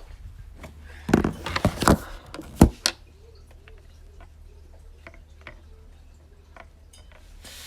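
A few loud knocks and scrapes of objects being handled close to the microphone, followed by scattered faint ticks.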